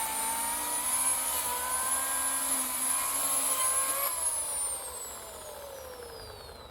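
Oregon CS1500 15-amp corded electric chainsaw running at full speed with a high motor whine that wavers slightly. About four seconds in, the trigger is released and the whine falls steadily in pitch and fades as the motor and chain coast down.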